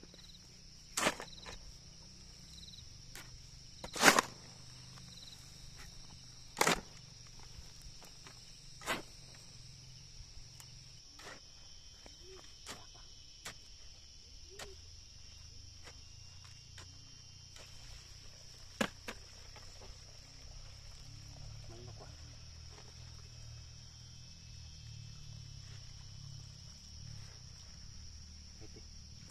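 Five loud, sharp knocks a few seconds apart, with softer clicks between, over a steady high-pitched insect drone.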